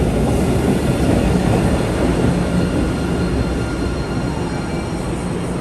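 MBTA Blue Line rapid-transit train running on the rails: a steady rumble with faint, steady high tones above it.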